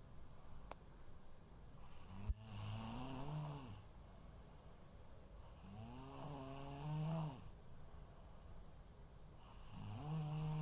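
A sleeping person snoring: three droning, pitched snores about four seconds apart, each rising and falling over a second or two. A sharp click comes as the first snore begins.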